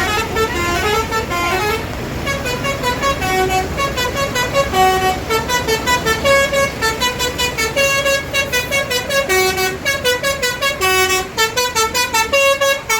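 Bus 'telolet basuri' musical horn playing a fast tune of short stepped notes, the notes coming quicker in the second half, over a low rumble.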